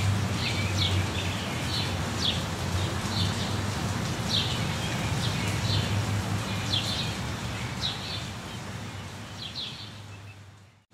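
Steady rain with a bird chirping over it, short high calls about once a second. The whole sound fades out near the end.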